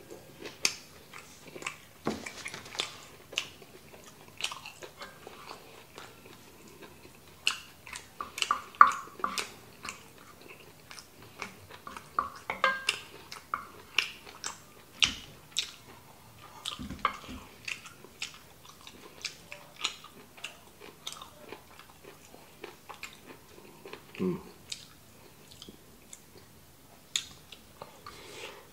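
Close-miked eating sounds: a man chewing and biting grilled sausage and kimchi fried rice, heard as a steady run of irregular sharp mouth clicks and smacks.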